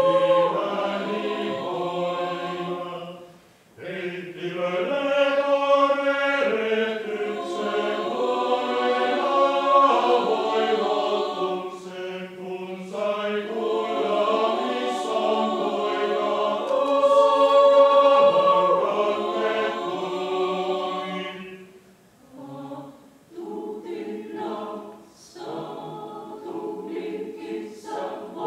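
Mixed choir singing a cappella in sustained chords, with a brief break about three and a half seconds in. From about twenty-two seconds in the singing turns quieter, in short, choppy phrases.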